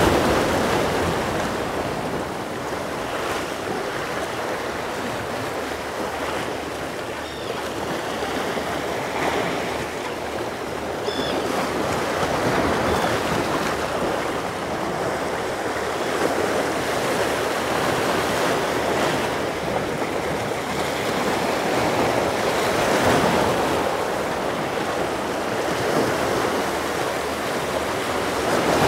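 Waves washing against a jetty in a steady, surging wash, with some wind on the microphone.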